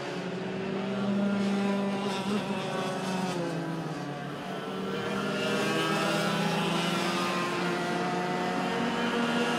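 Racing kart engines running hard as two karts race close together. Their buzz dips slightly in pitch about four seconds in, then climbs again and holds.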